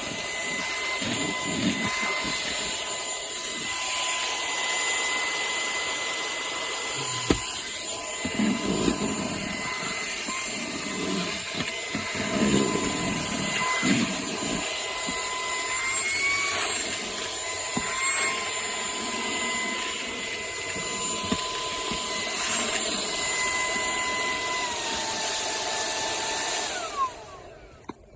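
Wkzay cordless handheld vacuum's brushless motor running with a steady high whine and suction hiss. Near the end it drops in pitch, winds down and stops.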